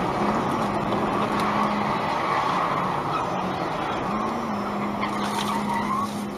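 Steady road noise and engine hum from inside a car driving at highway speed.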